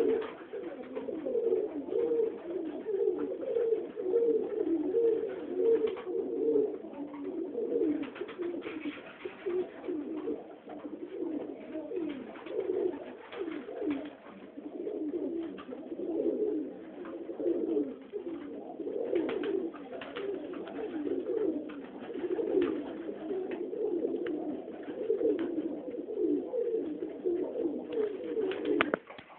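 A flock of Budapest Highflyer pigeons cooing together inside their loft: a continuous, overlapping low cooing with occasional short clicks. It drops away abruptly just before the end.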